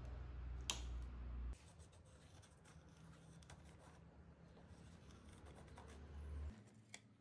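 A pen scratching softly on a sheet as it traces around a cut ring of PVC pipe, with a light tap about a second in and another near the end. A low hum underneath drops away about a second and a half in.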